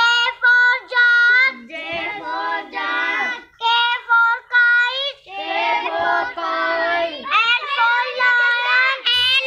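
A young girl chanting the alphabet chart's letters and words in a sing-song voice, in short held phrases with brief pauses between them.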